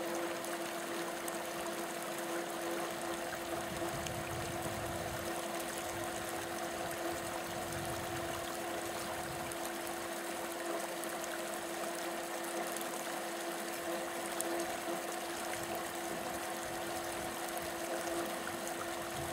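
Small stream flowing and trickling between snow banks, a steady rushing with a constant low hum underneath.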